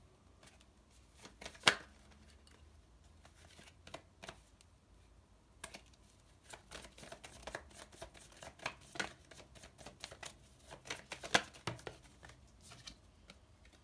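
Tarot deck being shuffled and handled: scattered sharp card clicks and slaps, a loud snap about two seconds in and a busier run of them in the second half.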